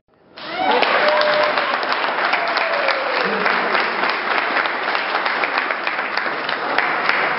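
Audience applauding with many hands clapping, a dense steady patter that swells in after a brief gap at the start.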